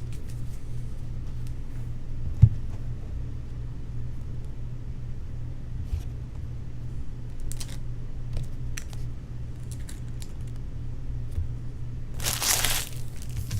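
Packaging being torn and crinkled in a short loud burst near the end, over a steady low electrical hum, with a single thump about two and a half seconds in.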